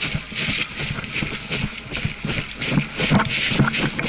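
Footsteps at a brisk walk, about two or three steps a second, each a short noisy scuff with a dull thump, mixed with clothing and gear rustling.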